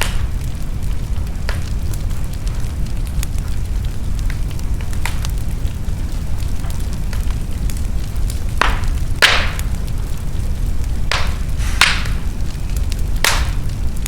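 Wood fire crackling in a fireplace: a steady low rumble of the flames with scattered sharp pops. The pops come more often and louder in the second half.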